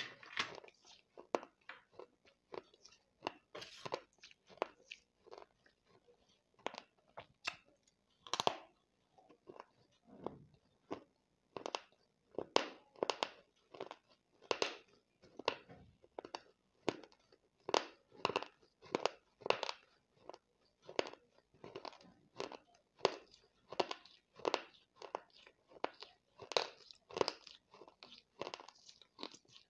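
Close-up chewing of crumbled baked clay pot pieces, a run of sharp crunches about one or two a second.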